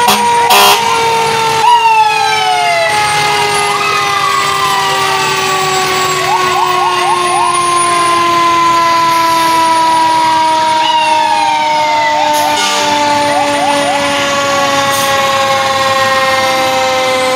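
Fire truck sirens during a slow procession of fire engines. One siren holds a long wail that slowly falls in pitch throughout. Other sirens sweep down in pitch again and again over it, with a few short loud blasts in the first two seconds.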